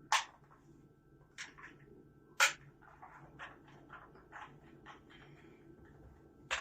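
Irregular clicks and taps from an IO Typex V2 mechanical keyboard being handled, with two sharp louder knocks, one just after the start and one about two and a half seconds in, followed by a run of lighter clicks.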